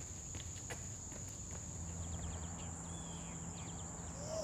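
Insects chirring in one steady, high-pitched drone, over a faint low hum. In the first second a few light footfalls of running shoes on an asphalt path tick through.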